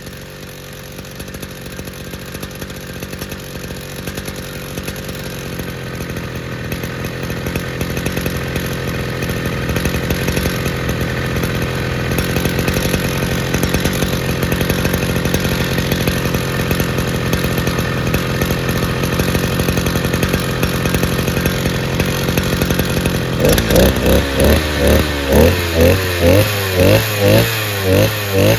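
Mitsubishi T200 brush cutter's small two-stroke engine, fitted with a diaphragm carburettor and a lightly ported cylinder, running steadily and getting louder over the first half. From about 23 seconds in it is revved up and down in quick repeated blips, about one and a half a second.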